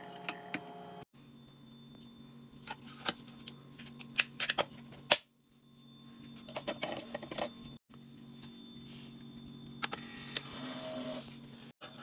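Plastic clicks and taps of a Keurig single-serve coffee maker being worked: the brewer lid lifted and shut over a coffee pod and buttons pressed, over a steady low hum. Near the end the machine starts brewing, a rising rush as coffee begins to pour into the cup.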